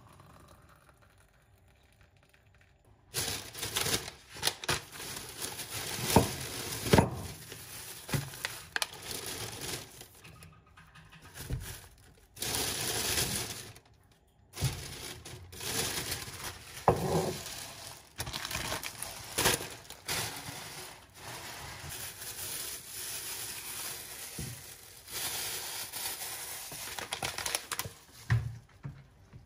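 Plastic packaging crinkling and rustling as it is handled: cellophane wrap and thin plastic bags, with many sharp crackles. It starts about three seconds in and goes on in irregular bursts.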